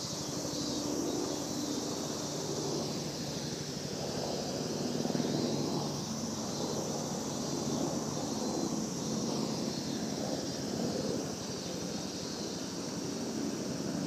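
Steady outdoor background noise: a low, wavering rumble like distant traffic or wind under a constant high hiss, with no distinct bird calls.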